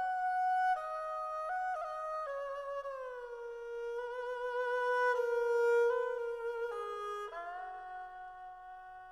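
Background music: a slow melody of held notes on a bowed string or flute-like instrument, stepping and gliding between pitches, settling on a long held chord in the last couple of seconds.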